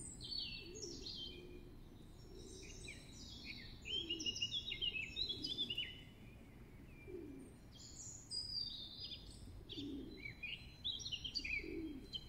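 Several songbirds singing in overlapping high chirps and trills, with low cooing notes repeating beneath them about once a second, over a steady low background rumble.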